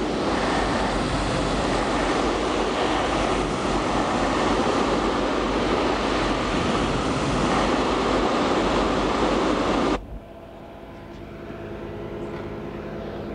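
High-pressure hot-water spray from a pressure washer wand blasting a rubber golf cart tire and wet concrete: a loud, steady hiss and splatter that cuts off suddenly about ten seconds in. After it stops, a much quieter steady hum remains.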